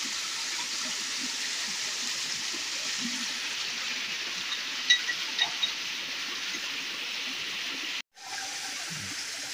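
Steady rush of water flowing over rocks in a small stream, with a few faint ticks about five seconds in. The sound cuts out briefly near the end and comes back quieter.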